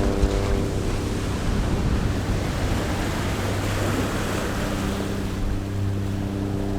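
Ocean waves washing onto a shore: a rushing hiss that swells to its loudest about halfway through and then falls back.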